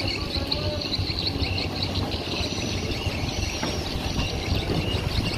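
Busy harbour ambience: a steady low engine hum under many high birds chirping.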